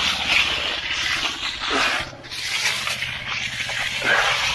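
Wet concrete being scraped and spread with hand tools: a continuous rough, wet scraping that rises and falls stroke by stroke, with a short break about two seconds in.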